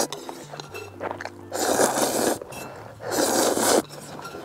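Slurping ramen noodles from a plate, two long noisy slurps, the first about a second and a half in and the second about three seconds in.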